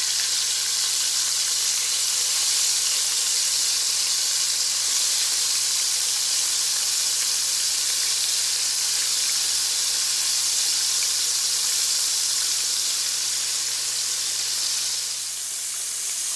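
Floured squid pieces shallow-frying in hot oil in a large skillet: a steady, loud sizzle that shifts slightly about a second before the end.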